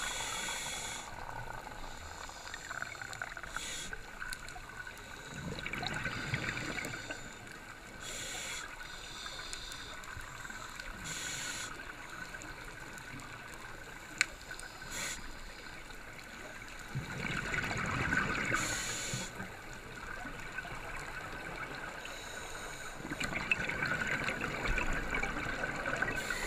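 Scuba diver breathing through a regulator underwater: a hiss with each inhalation and a gurgle of exhaust bubbles, repeating every few seconds.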